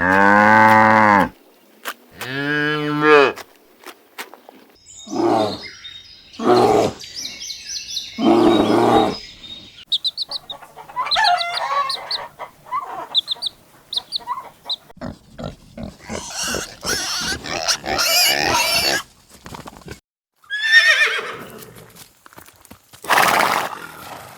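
A series of assorted farm and pet animal calls, one after another with short gaps. It opens with a long pitched call, followed by a second pitched cry and then shorter, rougher calls and high chirps.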